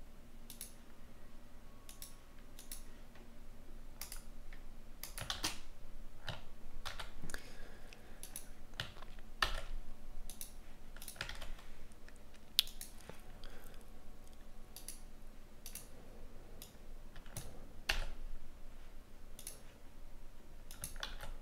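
Typing on a computer keyboard: irregular keystrokes and clicks.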